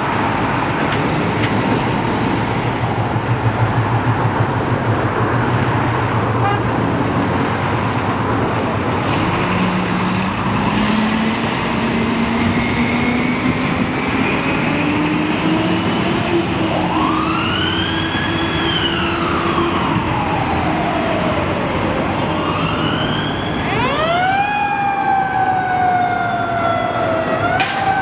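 Fire department ladder truck pulling out and accelerating: its diesel engine rumbles and then climbs steadily in pitch, over steady road noise. About two-thirds of the way through its siren starts, wailing up and down, and near the end the wails come quicker and louder.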